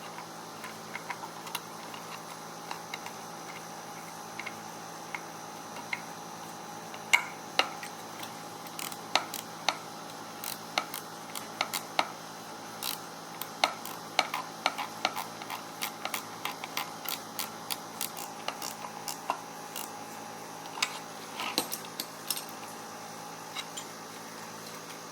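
Irregular light clicks and taps, several a second through the middle and sparser at the start and end, over a steady faint hum.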